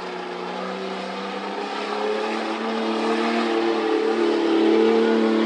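A tough-truck competition truck's engine running under power, with several steady engine tones growing steadily louder through the few seconds.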